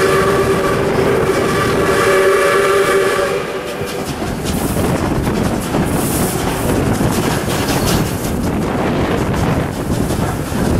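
The whistle of steam locomotive 621, a South Australian Railways 620 class Pacific, held in one long steady blast that stops about three and a half seconds in, sounded for a level crossing. Then the steady noise of the moving train, heard from a carriage window.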